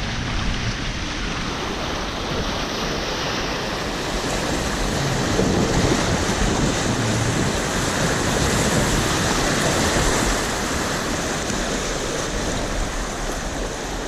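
Whitewater rapids of the North Umpqua River rushing steadily around the kayak, with wind on the microphone.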